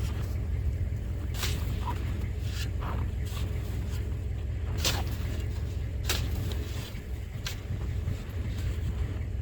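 Spade chopping into hard, wind-packed snow, a sharp crunching strike every second or so, over a steady low rumble of wind buffeting the microphone.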